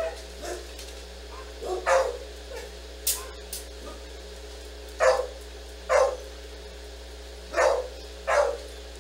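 A dog barking in short single barks, five in all, the last four coming in two close pairs.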